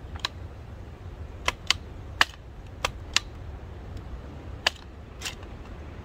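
Hi-Point 9mm carbine being handled to clear a jam: about eight sharp metal clicks and knocks, unevenly spaced, as its action and magazine are worked.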